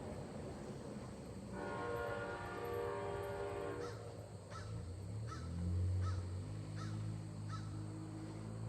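An Amtrak locomotive's multi-chime air horn sounds one long blast. Then about six short, sharp calls follow, one every two-thirds of a second, while the low rumble of the approaching diesel locomotive builds, loudest about six seconds in.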